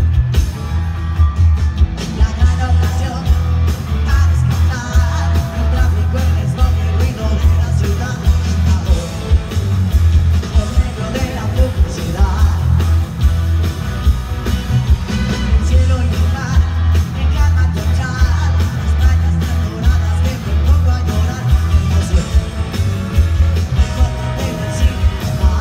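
Live pop-rock band with a horn section playing loudly while a woman sings lead; the bass and kick drum pulse heavily under the voice and horns.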